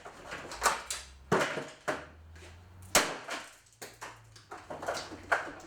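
Several irregular smashing hits on a plastic box fan, each a sharp crack with a brief rattle of loose plastic pieces, with a low hum underneath from the fan's motor, still powered but no longer turning.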